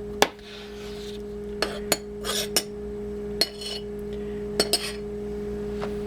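Kitchen utensils clinking and tapping against a mixing bowl while dry ingredients are measured out: a scattering of light knocks, some in quick pairs, over a steady low hum.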